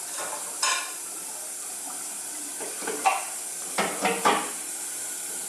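A baby makes a few short, sharp mouth noises and squeaks, about four of them, over a steady hiss.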